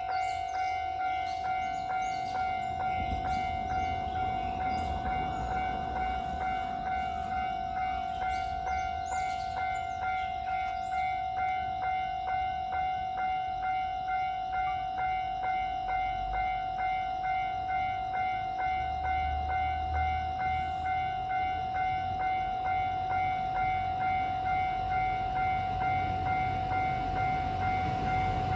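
Japanese railway level-crossing warning bell ringing: a steady electronic ding repeating evenly. A low train rumble swells in the second half and builds near the end.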